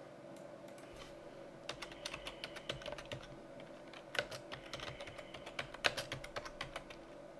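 Computer keyboard typing: an uneven run of key clicks in short clusters, starting a little under two seconds in, over a faint steady hum.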